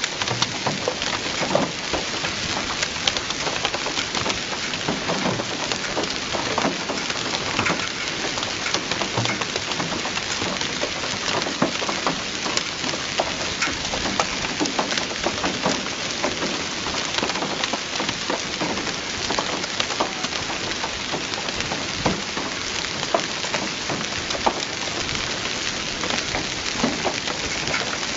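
Hailstones falling hard: a dense, steady patter with many sharp separate hits over it.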